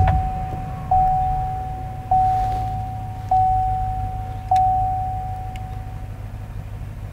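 Chevy Silverado's 5.3-litre V8 idling just after starting, under a dashboard warning chime that sounds five times, about a second and a quarter apart, each tone fading away; the chime stops about six seconds in.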